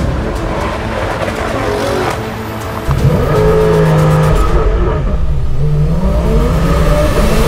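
Performance car engines accelerating on a mountain road; about three seconds in one engine grows suddenly louder, its pitch dropping and then climbing again as it revs through the gears.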